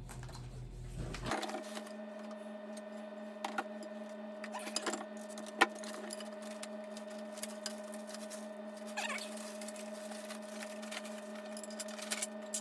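A steady hum like a small motor, starting abruptly about a second in and cutting off at the end, with scattered clicks and knocks on top.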